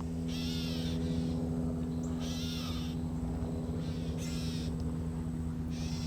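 A bird calling repeatedly: four or five high, harsh calls of about half a second each, a second or two apart, over a steady low hum.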